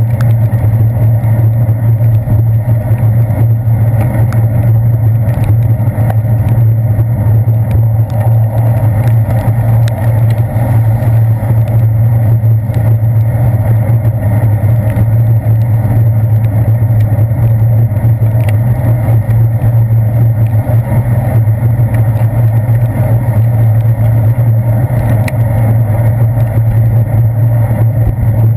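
Steady, loud, muffled rumble of a bicycle riding on a wet path, picked up by a GoPro Hero 2 on the handlebars: wind and road vibration through the mount, with a few faint clicks.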